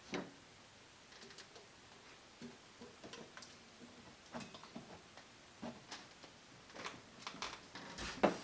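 Light, irregular clicks and taps from a rotary switch and its wires being handled against a small sheet-metal project box, with a sharper knock just after the start and another near the end.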